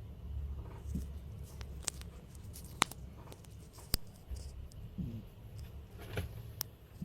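Faint, low stomach rumbling with two short, quiet gurgles, about a second in and about five seconds in, and several sharp clicks.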